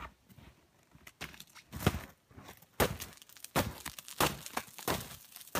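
Footsteps crunching through deep snow, a step about every 0.7 seconds.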